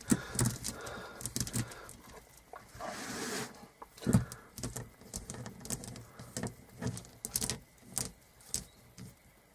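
Oiled motorcycle drive chain from a Lexmoto ZSX 125 being flexed and worked by hand, its metal links clicking irregularly as they are tested for stiff links after a seized link has been freed up.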